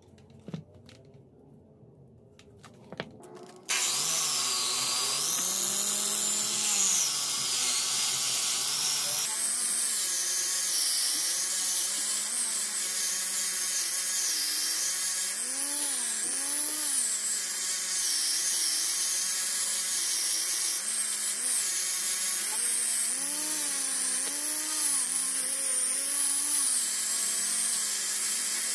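A Makita angle grinder switches on about four seconds in and runs steadily, its motor pitch dipping and recovering again and again as the spinning disc is pressed against the metal guard of a knife.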